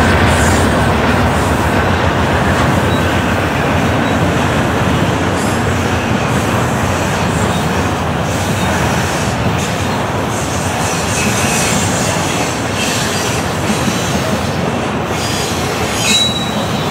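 Double-stack intermodal freight train rolling past: a steady rumble and clatter of steel wheels on the rails, with a brief high wheel squeal near the end.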